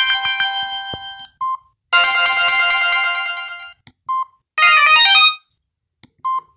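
Polyphonic ringtones from a Samsung Gravity phone's speaker, played as short previews one after another: one tune fades out about a second in, another plays for about two seconds, and a third plays briefly just before the end. A short single beep sounds between each.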